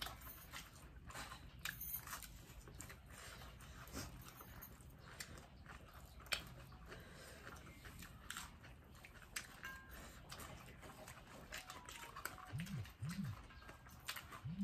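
People eating singju, a Manipuri raw-vegetable salad, by hand: faint chewing and crunching with scattered small clicks of fingers and food on a steel plate, the sharpest click about halfway through.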